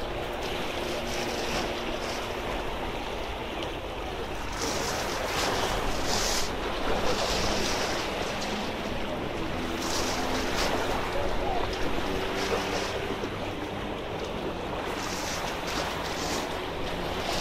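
Small sea waves washing and splashing against jetty rocks, with several louder splashes, one near the end. Wind buffets the microphone throughout.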